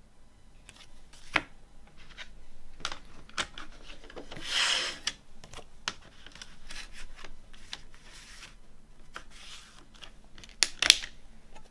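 Handling of a plastic CD jewel case and its paper booklet: paper rubbing and sliding, with a longer scratchy swish about four to five seconds in, and scattered sharp clicks and taps of the plastic case, the loudest pair near the end.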